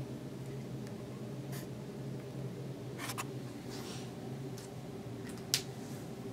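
Steady low room hum with a few faint rustles and scratchy clicks scattered through it, and one sharper click about five and a half seconds in.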